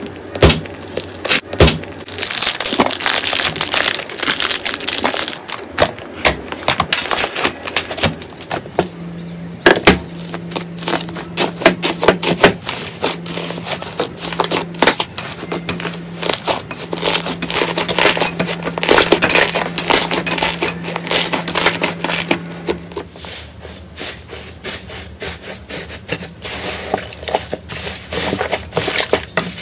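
Crunchy slime being squeezed and pressed, giving dense, irregular crackles and pops.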